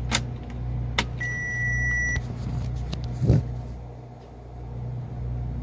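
Mercedes-Benz Actros truck's dashboard beeping once as the key switch is turned on for a gearbox reset: one steady high beep lasting about a second, just after a couple of sharp clicks. A steady low hum runs underneath, and there is a dull thump a little past halfway.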